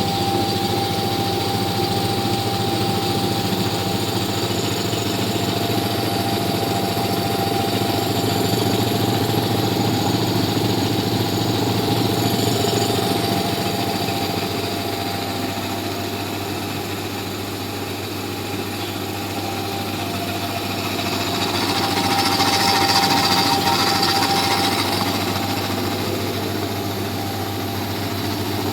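A 1 HP two-piston electric air compressor running steadily, with a continuous hum and a rapid mechanical chatter from the pump.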